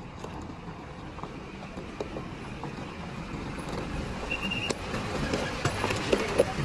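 Tata truck rolling slowly across loose gravel toward and past, its diesel engine running and its tyres crunching the stones, growing louder as it nears. A brief high squeal sounds a little past four seconds in.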